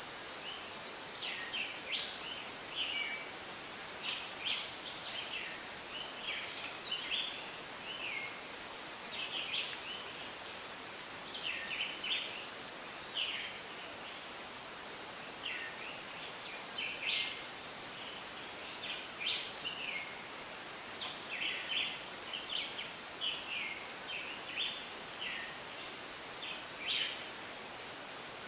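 Dense rainforest chorus of many overlapping short chirps and calls, some higher and some lower, repeating throughout over a steady background hiss.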